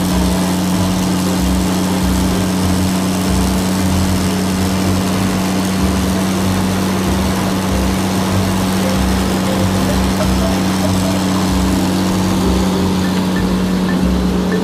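A motor or engine running steadily, a constant low hum with a noisy drone over it and no change in speed.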